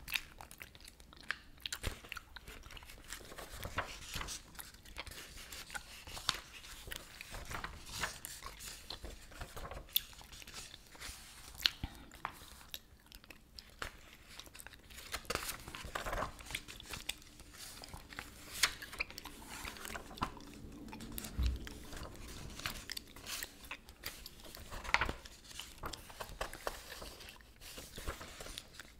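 Close-miked chewing gum: wet smacks and sharp clicks at an irregular pace. Now and then there is the rustle of paper as word-search book pages are turned.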